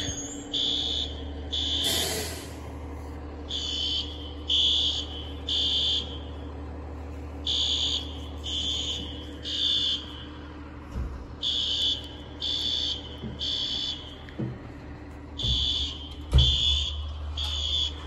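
Building fire alarm sounding the temporal-three evacuation pattern: three high beeps about a second apart, a pause, then three more, repeating. A steady low hum runs underneath.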